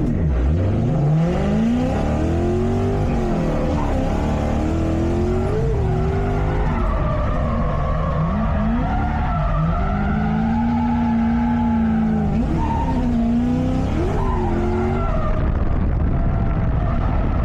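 Lexus SC400 drift car's 1UZ-FE V8 revving hard through a drift run, its note climbing steeply at the start and then rising and dipping again and again, with a level stretch in the middle. Tires skid against the pavement throughout.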